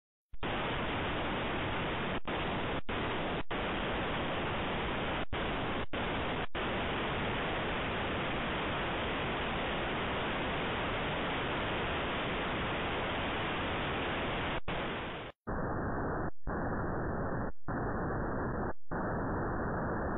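Steady static hiss with nothing else in it, cutting out for an instant about ten times and turning duller about fifteen seconds in.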